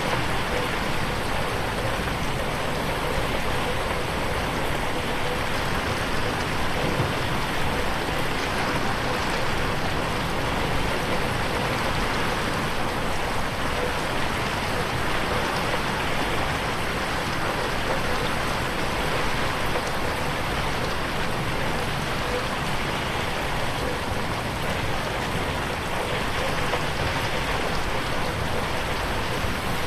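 Steady rain falling on a window pane, an even hiss of pattering drops, mixed in 8D so that it moves around the listener's head.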